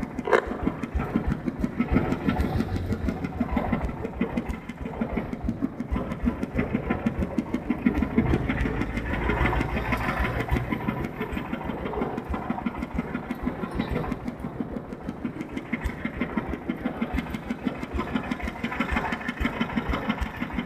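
Engine of a mobile rice-milling machine running steadily with a fast, even thump.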